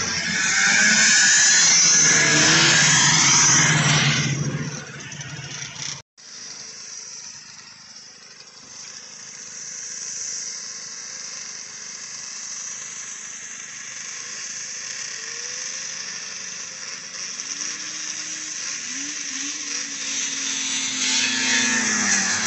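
Vintage two-stroke snowmobiles racing past at full throttle, loud, fading away about five seconds in. After a break, more sleds are heard distantly, their engines revving up and down in pitch. Near the end the engines grow louder as they rise in pitch.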